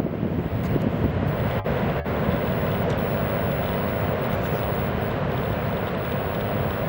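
Steady low roar of wind buffeting the microphone over heavy ocean surf, with brief dropouts about one and a half and two seconds in.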